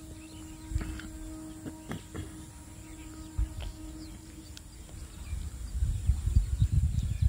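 Parts of a dismantled Hitachi C7SS circular saw being handled on a concrete floor: a few light knocks and clicks as the green plastic motor housing and metal parts are moved, then low rumbling scrapes from about five seconds in. A faint steady hum sits underneath during the first half.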